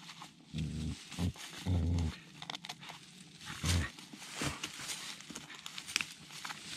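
Border collie giving three short, low growls while mouthing and tugging at a fallen branch, with dry leaves and twigs crackling under it.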